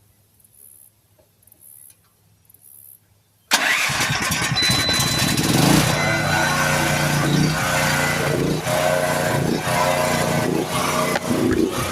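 Portable generator engine, started off a jump box because its battery is weak, catches suddenly about three and a half seconds in and then runs steadily.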